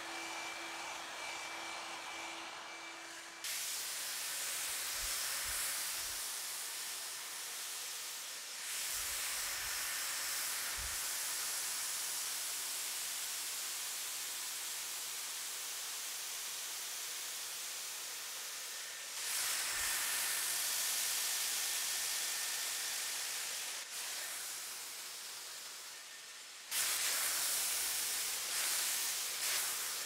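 Hot-air brush hair dryers (a Revlon One-Step Volumizer and a Dyson Airwrap with its smoothing brush) blowing air through hair: a steady rushing hiss. A thin whine sounds over the first few seconds, and the level jumps suddenly about four times.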